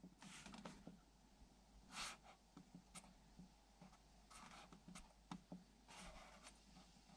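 Near silence, with faint, scattered clicks of fingers pressing the buttons on a Generac Evolution standby generator's control panel and a few soft rustles.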